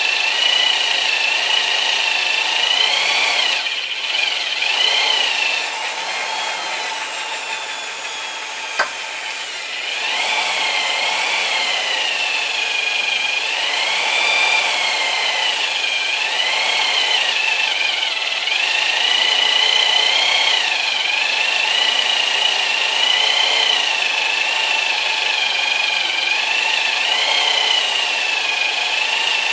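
Handheld electric drill driving a 1 3/4-inch bimetal hole saw through a metal frame plate, enlarging a hole. The motor whine wavers up and down as the cutting load changes and eases off for several seconds before picking back up, with a single sharp click about nine seconds in.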